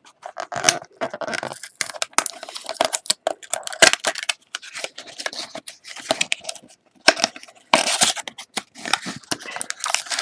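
Plastic shrink wrap being torn and crinkled off a sealed cardboard hockey card hobby box, and the box's seal flap being peeled open: a run of irregular crackles and short tearing rasps.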